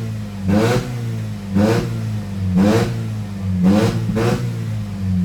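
Mercedes-Benz W204 C250 engine blipped repeatedly through an aftermarket valvetronic exhaust, five quick revs about a second apart, each rising and falling back to idle, with the exhaust valve set to racing mode.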